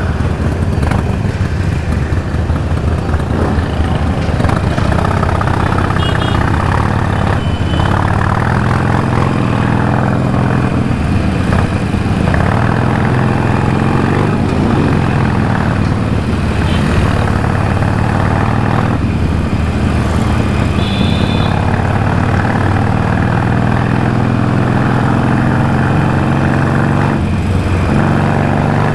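Harley-Davidson Iron 883's air-cooled 883 cc V-twin engine running while riding, its note rising and falling with the throttle, over a steady rush of wind and road noise.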